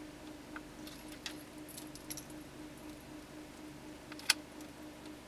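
Links of a fine-silver Cuban chain clicking faintly against each other and against pliers as the chain is twisted in a vise, with one sharper click about four seconds in. A faint steady hum runs underneath.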